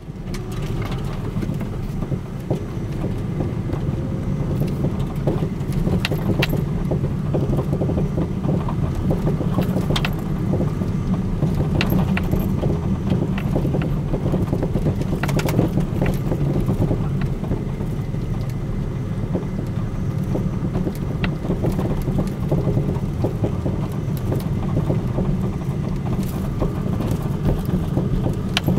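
A car driving with a steady road rumble, broken by scattered sharp clicks and knocks from its front coilovers. These are the abnormal suspension noises that the newly fitted coilovers still make.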